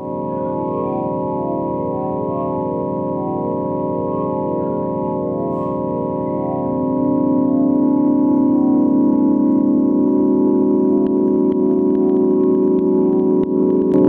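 Sustained, organ-like electronic drone of steady layered tones, with a slow pulsing shimmer in the upper tones; the lower tones swell louder about seven seconds in.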